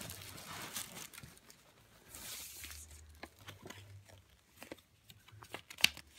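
Tissue paper rustling and crinkling as it is pulled out of a gift bag, with scattered small crackles and one sharp click near the end.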